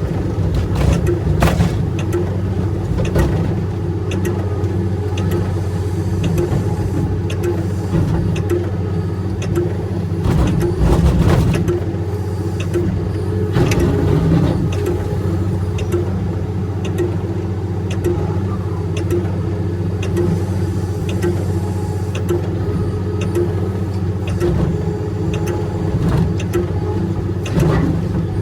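Large excavator's diesel engine running steadily under load, with scattered sharp knocks and clanks over it.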